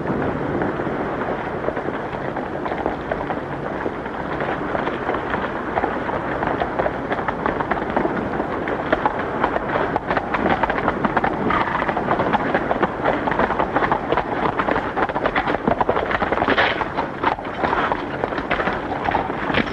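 Horses galloping: a dense, rapid clatter of hooves over the hiss of an old film soundtrack, getting louder about halfway through.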